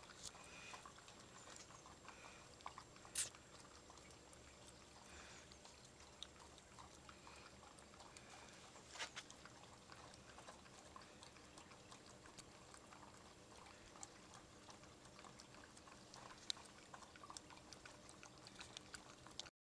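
Faint wet licking and lapping of a Belgian Tervuren puppy eating quark from a small plastic bowl, with many small scattered clicks. Two sharper clicks stand out, about three seconds in and about nine seconds in.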